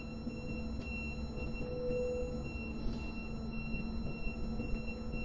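Steady machinery hum from a port crane, with low held tones and a higher tone that pulses on and off at a regular pace.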